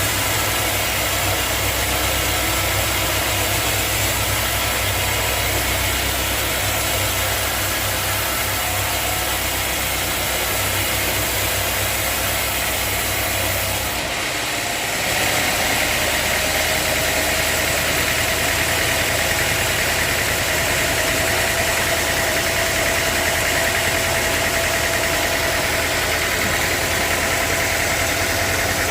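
Sawmill saw machinery running steadily with a loud mechanical hum. About halfway through the sound shifts: the low hum drops away and a higher whine comes in, rising slowly.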